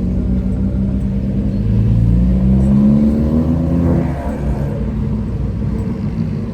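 Car engine revving up, its pitch climbing for about two seconds, then dropping back about four seconds in as the throttle eases, and running on more quietly.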